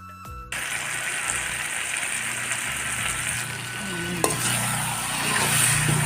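Pigeon meat, kohlrabi and potato sizzling hard in hot oil in a kadai, with a couple of short scrapes of the stirring spoon. The sizzle cuts in suddenly about half a second in, right as a few notes of flute music end.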